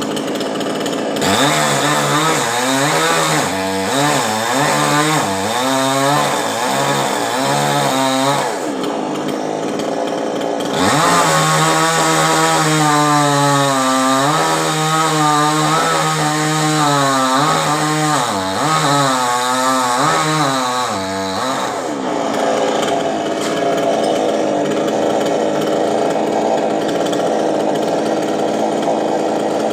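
Two-stroke chainsaw cutting a coconut palm, its engine pitch rising and falling again and again as throttle and load change. From about twenty-two seconds in it runs steadier and higher.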